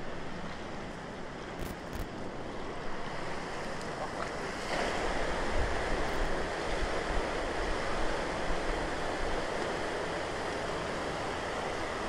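Steady rushing of shallow river water flowing in a concrete channel. It gets louder and brighter about five seconds in.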